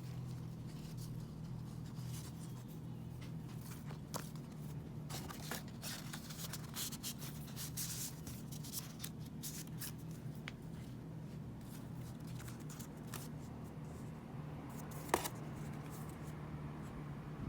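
Paper and plastic album packaging being handled and leafed through: scattered rustles and small taps, busiest in the middle, with one sharper tap near the end.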